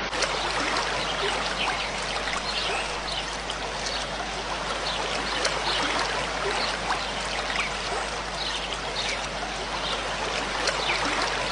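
Steady trickling and running water, with faint short chirps recurring over it.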